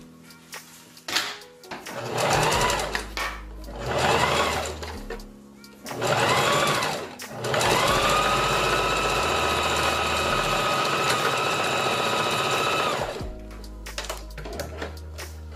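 Electric sewing machine stitching hair wefts onto a wig cap. It runs in three short bursts, its motor whine rising as it speeds up and falling as it slows, then holds one steady run of about five seconds that stops suddenly near the end.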